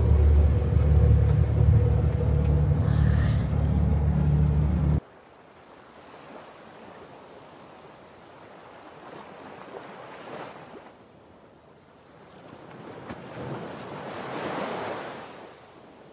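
Sky capsule rail car running along its elevated track: a steady low rumble with a faint hum, which cuts off suddenly about five seconds in. Then a quieter sound of sea waves washing over coastal rocks, swelling twice toward the end.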